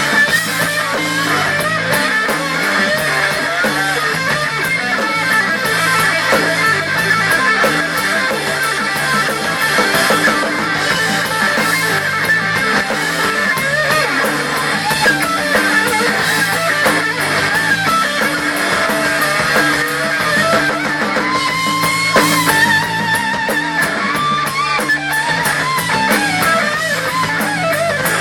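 Rock music instrumental break: a lead electric guitar plays a solo line with bends and vibrato over the band's backing.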